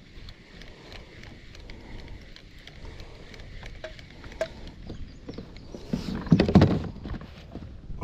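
Kayak on the move: faint water and hull noise with small scattered knocks, and a louder burst of knocking and rushing noise about six seconds in, lasting about a second.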